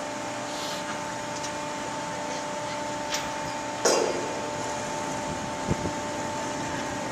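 Steady hum of a large car ferry's machinery, with several steady tones in it. About four seconds in comes a single sharp clank that rings briefly, and a duller thump follows near the end.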